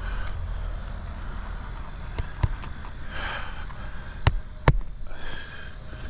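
Hammer driving roofing nails into asphalt shingles: two pairs of sharp strikes about two seconds apart, over a steady low rumble.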